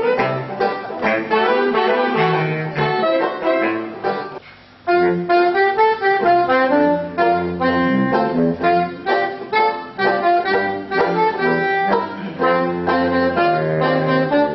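A saxophone ensemble playing a tune together, with sustained low bass notes under the melody. The music breaks off briefly about four and a half seconds in, then the band comes back in.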